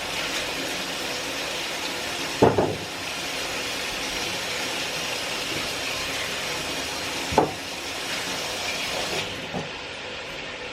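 Kitchen tap running steadily as potatoes and carrots are rinsed under it. The flow is broken twice by a brief louder sound, and the hiss of the water falls away near the end.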